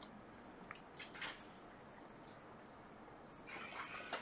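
Near silence: faint room tone with a couple of soft clicks about a second in and a brief faint rustle near the end.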